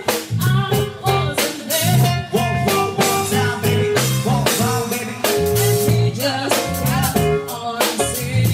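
Band music with guitar and a drum kit keeping a steady beat, and a singing voice over it.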